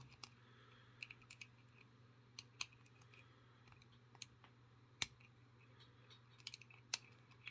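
Lock pick and tension wrench working the pins of an old Yale 70mm discus padlock: faint, irregular small metallic clicks and ticks, with one sharper click about five seconds in.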